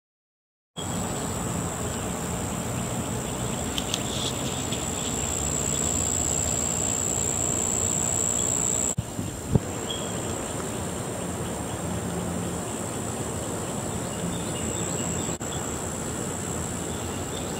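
Outdoor ambience carried by a steady, high-pitched insect trill, with a few faint chirps over it. The sound breaks off abruptly for an instant about halfway through and again near the end.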